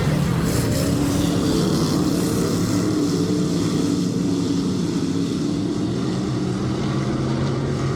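A field of dirt-track race cars running at speed around the oval, their engines blending into a steady, loud drone with a pitch that drifts as cars pass.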